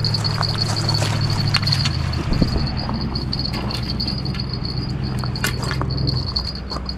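A steady low engine hum that shifts pitch about two seconds in and again near the end, under a continuous high insect trill and scattered small clicks.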